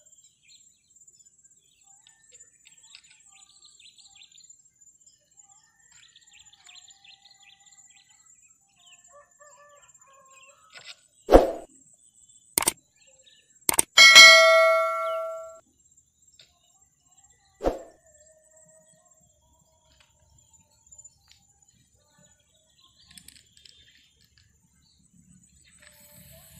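Subscribe-button animation sound effect: a thump and two sharp clicks, then a bell ding that rings and fades over about a second and a half, with another thump a few seconds later. Faint bird chirps sound in the background.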